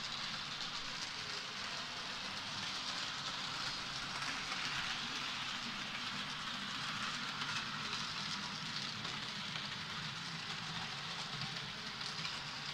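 H0-scale model train running on layout track: a steady electric-motor hum under the hiss and rattle of small wheels on the rails.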